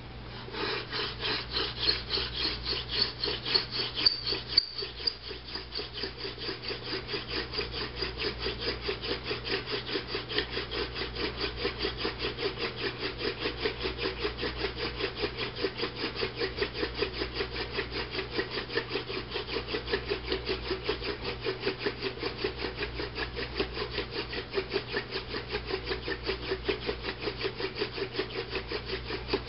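Hand-drill friction fire: a dog fennel spindle spun back and forth between the palms, grinding into a palm fruit-branch fireboard in a fast, even rhythm of rubbing strokes. It is pressed down with about 2 to 3 kg to build heat toward an ember. The friction is higher and brighter for the first few seconds, with a short break near five seconds.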